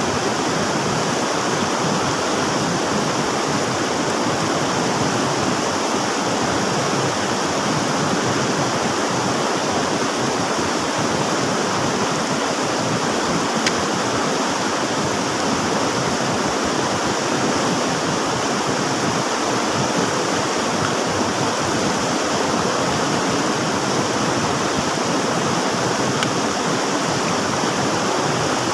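River water rushing steadily, an even, unbroken flowing noise.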